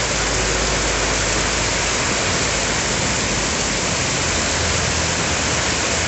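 Heavy rain falling in a steady downpour, an even hiss without gusts of wind.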